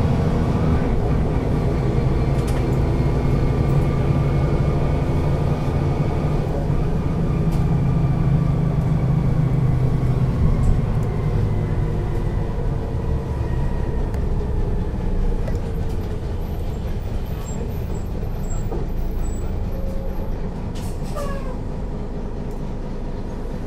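Büssing DE double-decker bus's diesel engine heard from inside the lower deck, running steadily and then dropping back about ten seconds in to idle while the bus stands at a stop with its doors open. A few faint clicks near the end.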